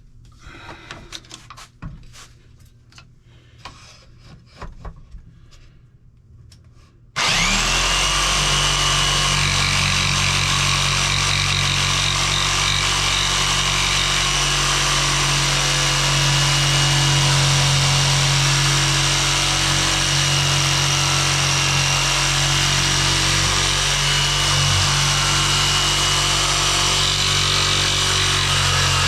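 A few quiet handling clicks and taps, then about seven seconds in a corded Ryobi jigsaw starts up with a rising whine and runs steadily, cutting wood.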